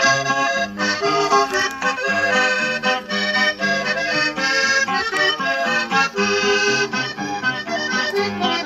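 Norteño music with accordion playing from a cassette tape through a portable QFX cassette radio-recorder's speaker, starting as the tape begins to play.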